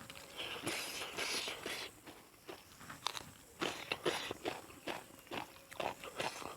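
A person chewing and crunching food close to the microphone, with irregular wet clicks and crunches from the mouth.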